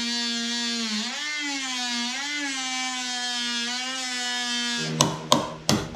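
Ryobi oscillating multi-tool running with its blade cutting into the fibreglass and rotten wood of a sailboat's mast step, a steady high buzz that dips and wavers in pitch twice as the blade bites. Near the end the tool stops and a few sharp hammer knocks follow.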